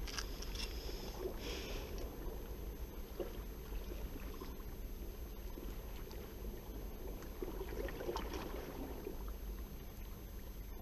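Seawater sloshing and gurgling in the gaps between concrete breakwater blocks, over a steady low rumble.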